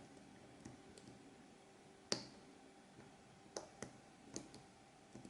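Faint, scattered clicks of a lock pick working the pin stack inside the SOMA challenge lock's cylinder under tension, with one sharper click about two seconds in and a few lighter ones after it.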